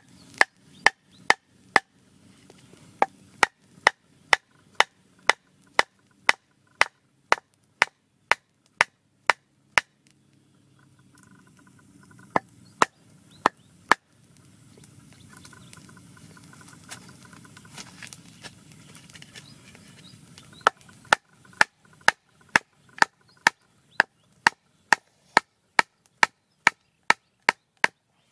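A wooden stick being split lengthwise by blows from a wooden club: sharp wood-on-wood knocks at about two a second, with a pause of several seconds midway.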